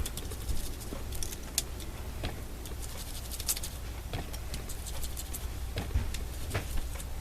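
Irregular soft taps and scratchy dabs of a worn foam blending tool pouncing colour through a stencil onto card, over a low steady hum.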